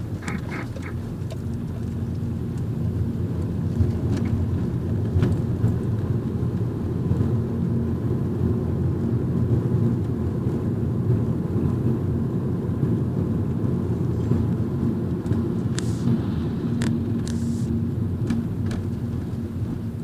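2011 Mazda 3 2.0 sedan on the move: a steady low rumble of engine and road noise, with a few short clicks and knocks scattered through, more of them near the end.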